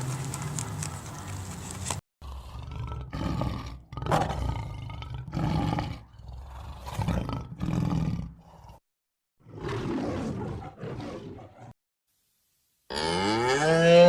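A tiger gives a series of short roaring calls, each with a gap between. Near the end a cow starts mooing, a loud call that rises in pitch.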